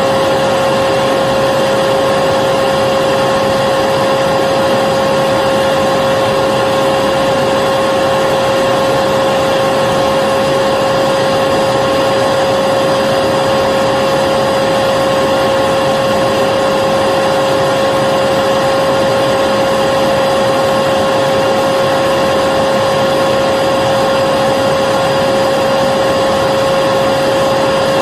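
Vacuum cleaner running continuously at a steady level, a constant whooshing rush with a steady high motor whine, played as white noise to lull a baby to sleep.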